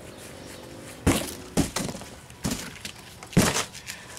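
Four sharp knocks and clatters of hard objects being handled, roughly a second apart, the loudest a little after three seconds in.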